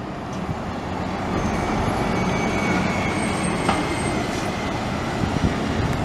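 Double-decker bus driving past close by and pulling away, its engine running steadily with a faint high whine over the road noise.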